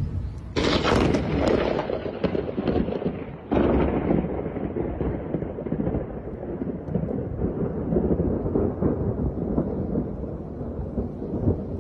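Thunder from nearby lightning strikes: a sudden thunderclap about half a second in and another about three and a half seconds in, each fading into a long, low rolling rumble.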